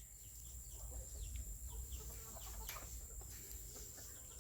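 Chickens clucking faintly, a scatter of short, quick calls.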